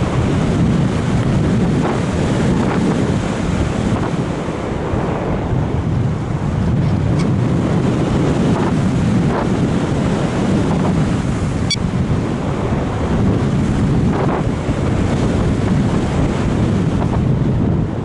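Wind rushing over the action camera's microphone on an RC sailplane in gliding flight: a steady, loud rush of air with no motor sound.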